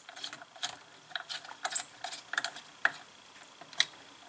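Small, irregular clicks and ticks of wires being worked into the screw-terminal block of a CNC controller's breakout board, a dozen or so light snaps, two of them louder, about 1.7 and 3.8 seconds in.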